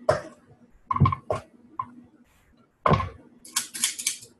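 Kitchen utensils clattering against mixing bowls and cookie sheets as cookie dough is scooped: a few sharp knocks with a dull thud, then a quick run of clicks near the end.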